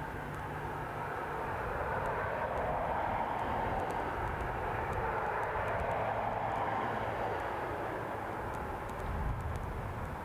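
A passing container ship, a steady low drone with a rushing noise over it that swells a little in the middle and eases off toward the end.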